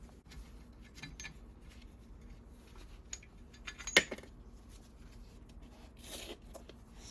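A few light metal clicks and clinks from the parts of an old cast-iron leather splitter being handled during disassembly, the sharpest about four seconds in, with a short scrape a little after six seconds.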